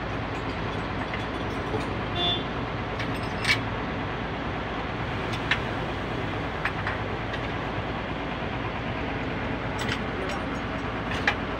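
Steady low drone of vehicle engines and traffic, with a few sharp clicks and clinks scattered through it, the loudest about three and a half seconds in.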